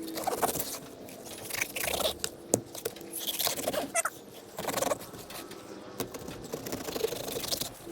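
Knife scraping and crunching through a sheepshead as the fish is cleaned, in irregular strokes.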